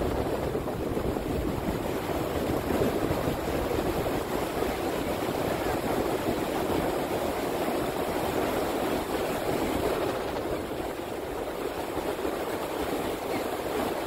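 Steady rushing of wind on the microphone and washing water, an even noise with no distinct events.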